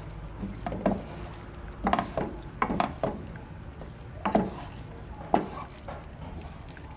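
Wooden spoon stirring a minced-meat and grated carrot and courgette filling in a pan, with irregular scrapes and knocks of the spoon against the pan.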